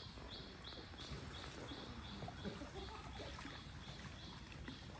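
Faint jungle ambience: a short, high chirp repeating evenly about two and a half times a second from a calling animal, over a low rumble.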